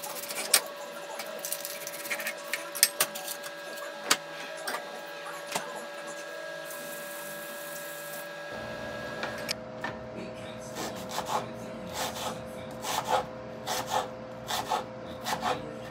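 Kitchen handling sounds: scattered knocks and clicks of dishes and utensils as food is prepared, over a steady hum. The background changes abruptly about halfway through.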